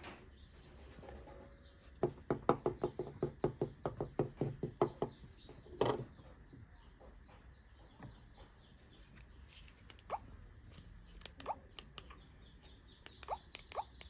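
A rapid run of about fifteen short pulses, a few seconds long, then a single loud knock. Near the end comes a quick series of short key beeps as digits are pressed on a Nokia 3310 (2017) keypad.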